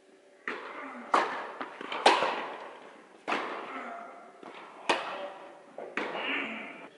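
Tennis ball struck by rackets and bouncing on the court during a rally: about six sharp pops, each echoing in a large indoor hall.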